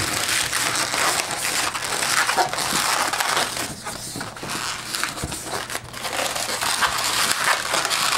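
Inflated 360 latex modeling balloon squeaking and rubbing under the hands as it is twisted into a bubble and a pair of pinch twists, a continuous crinkly rubbing with many small squeaks.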